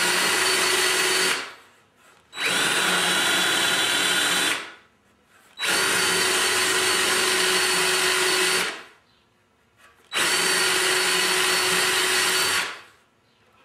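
DeWalt cordless drill boring into a wooden silkscreen frame, run in four spells of a few seconds each with about a second's pause between, the motor whine winding down each time the trigger is let go. The hole is being drilled only part way, stopping before the bit breaks through so the wood doesn't splinter.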